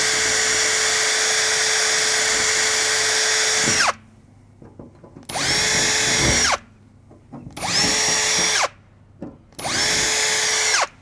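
Cordless drill boring 2.5 mm pilot holes into a ute canopy door. It runs steadily and stops about four seconds in, then starts again in three short bursts of about a second each, winding up and down each time.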